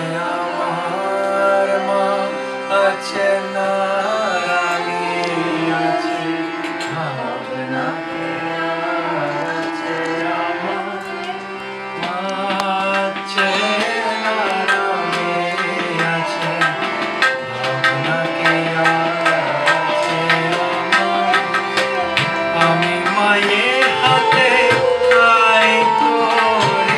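Hindu devotional song: a man singing to harmonium and a bowed string instrument, with tabla drumming. The drum strokes grow denser and louder about halfway through.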